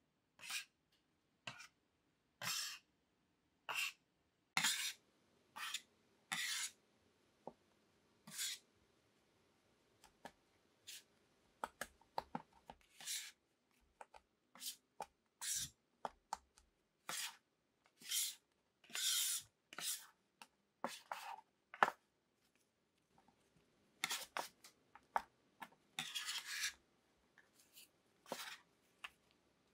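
A kitchen utensil working scone mixture in short, irregular scraping strokes, single ones and quick clusters with brief pauses between.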